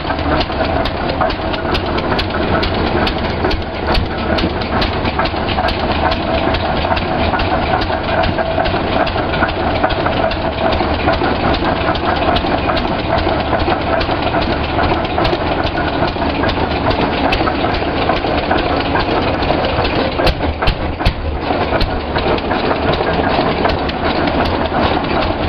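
1911 Rumely OilPull 15-30 Type F tractor's single-cylinder engine running steadily, heard close up with a dense patter of mechanical clicks over its steady running.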